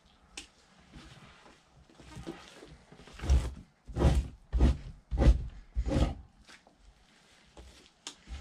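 Fleshing knife scraping fat off a raccoon hide on a fleshing beam: a run of five quick, strong strokes in the middle, softer scraping before and after.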